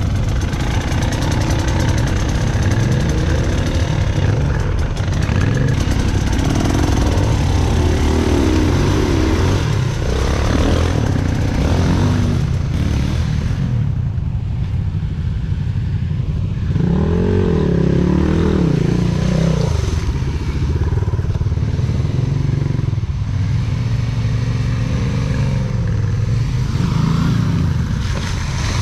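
Enduro dirt bike engine running under load, its revs rising and falling again and again.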